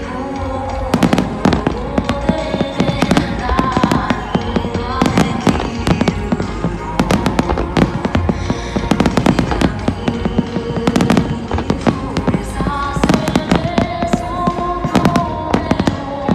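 Aerial firework shells bursting in a dense, continuous barrage, many bangs a second, with music playing under them.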